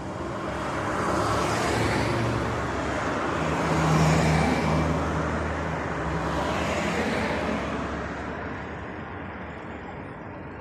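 Road traffic: several vehicles drive past one after another. The loudest passes about four seconds in with a low engine hum, and the sound fades toward the end.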